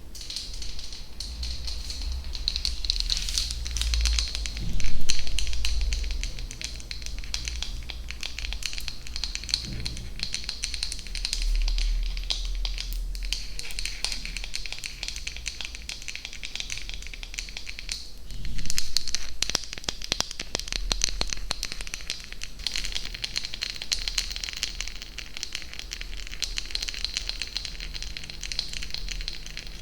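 Close-miked ASMR trigger sounds: a dense, continuous stream of tiny crackles and clicks, with two louder low thumps, about five seconds in and again just past the middle.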